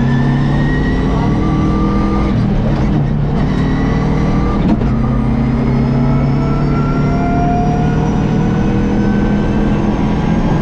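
Subaru Impreza WRX STI rally car's turbocharged flat-four engine pulling hard, its pitch climbing in each gear and dropping back at gear changes every second or two.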